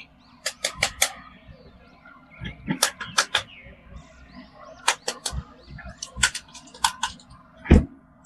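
Quick groups of three or four sharp clicks, several times over, with one dull, louder thump near the end.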